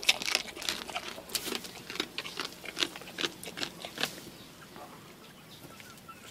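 A goat chewing and eating fish: a run of irregular short clicks, close to the microphone, that thins out and fades about four seconds in.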